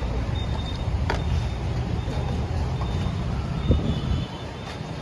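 Steady low rumble of street traffic, with a short click about a second in and a sharper knock about three-quarters of the way through.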